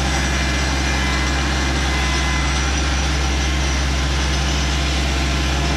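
Tractor engine running steadily as the tractor drives along, a deep even drone that holds the same pitch and loudness throughout.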